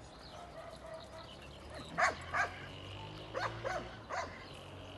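Belgian Malinois giving several short barks, two close together about two seconds in and a few more over the next two seconds.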